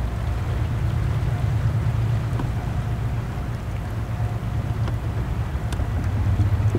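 Steady low rumble of a freight train heard far off: the diesel engines of a 3TE10M locomotive working under load, with the wagons rolling behind. The rumble grows slightly louder near the end.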